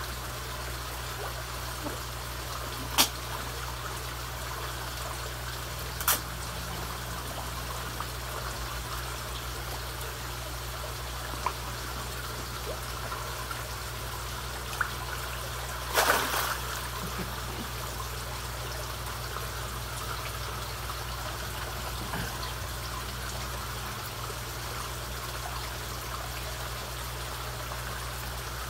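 Koi pond water trickling steadily over a low hum. A few sharp splashes and slurps come from koi feeding at the surface, the loudest cluster about sixteen seconds in.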